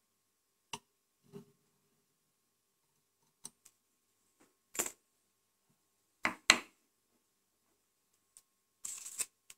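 Sparse small clicks and taps of fly-tying tools being handled at the vise. The loudest is a pair of taps about six seconds in, and there is a brief rustle near the end.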